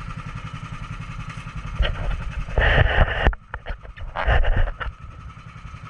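Small fishing boat's motor running steadily with a fast, even low pulse. Two louder rushing noises break in, one about two and a half seconds in and one near four and a half seconds.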